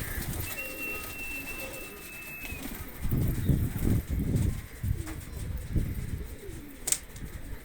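Domestic pigeons cooing: low pulsing coos in several groups from about three seconds in. A thin, steady high tone lasts about two seconds near the start, and there is a sharp click near the end.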